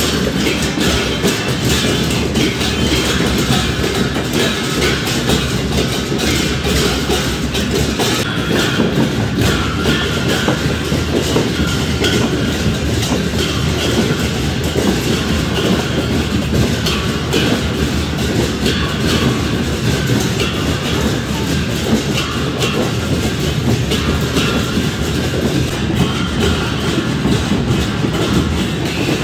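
A Newari procession band's drums and cymbals, played loudly and without a break in a dense, clattering rhythm.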